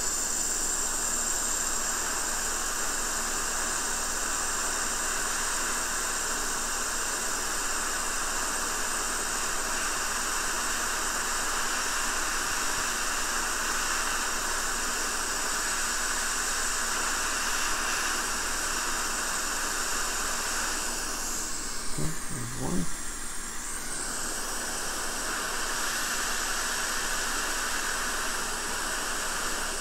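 Hot air rework station blowing a steady hiss while two corroded surface-mount capacitors are desoldered from the circuit board. The airflow drops away about twenty-one seconds in and picks up again a few seconds later.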